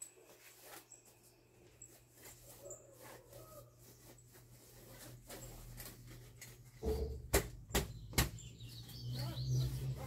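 Plastic front grille of a pedestal fan being handled for fitting: light rustling, then a few sharp clicks and knocks about seven to eight seconds in. A low hum comes up near the end.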